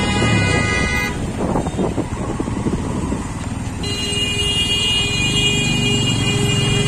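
Busy city road traffic heard from a moving motorbike, with engine and road noise throughout. A vehicle horn sounds until about a second in, and another horn is held steady for about three seconds starting just before the middle.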